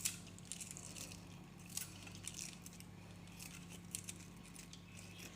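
Faint, scattered light clinks and taps of small kitchen items being handled, a few seconds apart, over a low steady hum.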